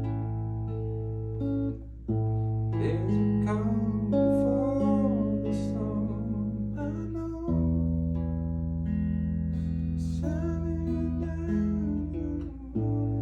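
Acoustic guitar strummed through a chord progression, the chords changing every second or two, with a voice singing along in places.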